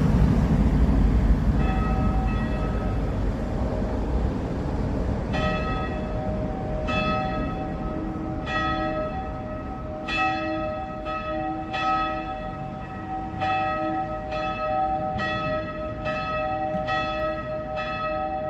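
Church bells pealing: several bells struck over and over, roughly every second and a half, each ring overlapping the next. A low vehicle rumble fades over the first couple of seconds, and the bells come in strongly about five seconds in.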